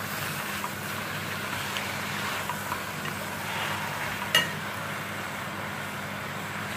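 Spinach sizzling in an aluminium pot over high heat as a wooden spatula stirs it, with small scrapes and taps against the pot. One sharper knock about four seconds in.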